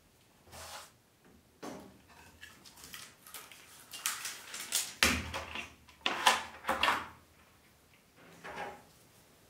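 Irregular clicks, knocks and scrapes of Bambu Lab A1 3D printer parts being handled and fitted together during assembly, loudest about five and six seconds in.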